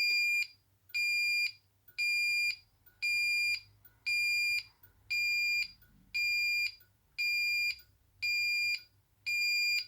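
AE&T T105N fire alarm sounder playing its tone no. 12: a steady high-pitched beep about half a second long, repeated about once a second.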